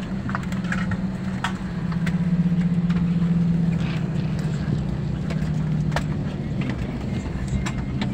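Steady low drone of an airliner's cabin at the gate after landing, a little louder about two to four seconds in, with light clicks and knocks as passengers open the overhead bins and take down their bags.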